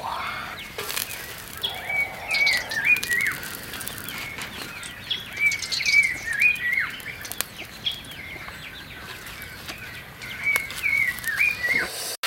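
A bird calling in the outdoors: a short phrase of several quick dipping chirps, given three times about every three and a half seconds. Scattered sharp clicks sound between the phrases.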